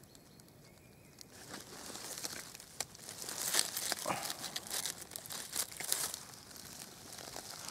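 Dry fallen leaves rustling and crackling as they are disturbed: a run of quick, irregular crackles that starts a little over a second in and eases off near the end.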